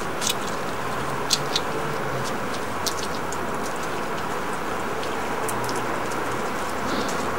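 European hedgehog crunching dried mealworms: small, crisp, irregular crunches and clicks, a few sharper ones early and a run of them near the middle, over a steady background hiss.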